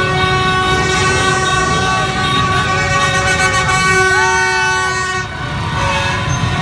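Many horns sounding at once, long overlapping held toots with a few bending in pitch, over the low rumble of a slow mass of motorbike engines.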